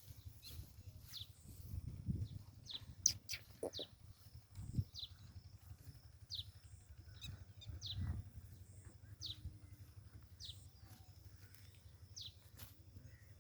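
A bird calling with short, high, falling chirps, repeated about once a second, over a low rumble.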